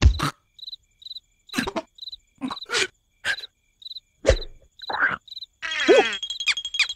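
Crickets chirping in a steady run of short high chirps, with a series of sharp cartoon sound effects (short knocks and slaps) as an animated larva moves about. Near the end comes a falling pitched glide, and music starts.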